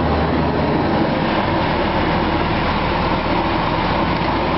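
Automatic car wash heard from inside a truck's cab: water jets spraying against the truck with a steady loud rushing hiss, over a low steady hum from the wash machinery and the truck's engine.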